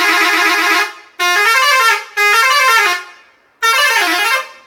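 Telolet multi-tone musical air horn of a Satria Muda SHD bus playing a tune. A held, warbling chord breaks off about a second in, followed by three short bursts of stepping notes.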